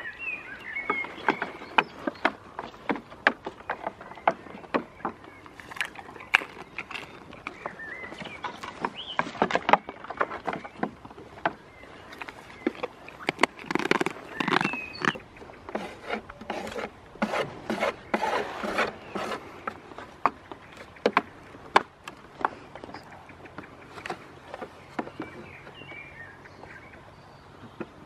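Goats moving about on a wooden pallet platform: irregular clicks and knocks, at times several a second.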